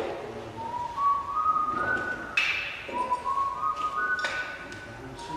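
Someone whistling a short phrase of rising stepped notes, three times over, with a couple of sharp knocks in between.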